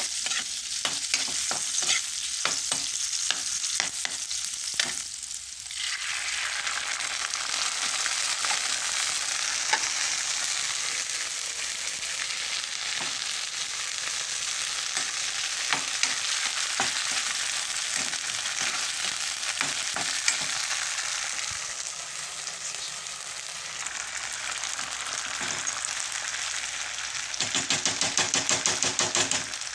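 Food sizzling in a hot pan while a utensil stirs it, with scattered clicks and scrapes against the pan. The sizzle swells suddenly about six seconds in, and near the end there is a quick run of rapid, even clicks.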